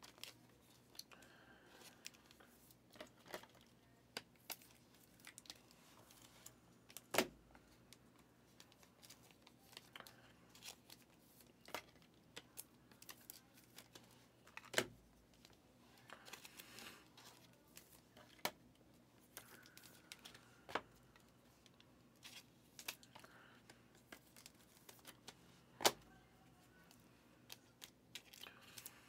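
Faint handling of trading cards: crinkling of a foil pack wrapper and plastic card sleeves, with scattered light clicks and taps, three of them sharper.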